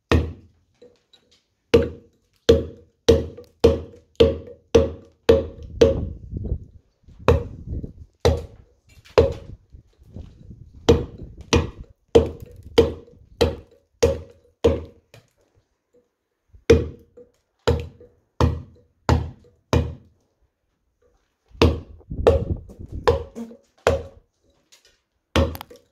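Round mallet striking a steel chisel, cutting letters into stone: sharp knocks, each with a short ring, in runs of about two a second, with brief pauses about two-thirds of the way in.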